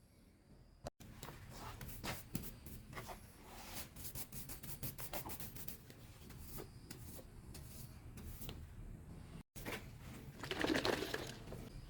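Quiet handling sounds: scattered light clicks and taps of small objects, with a short rustling swish near the end.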